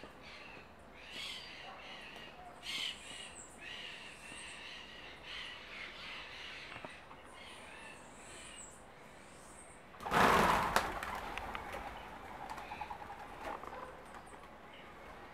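Birds chirping for the first ten seconds. Then comes a sudden loud clatter of many wings as the flock of feeding white-winged doves and pigeons flushes, with fluttering that dies away over the next few seconds.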